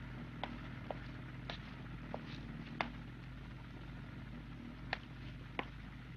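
Footsteps on pavement, a series of single taps at walking pace, over a steady low hum.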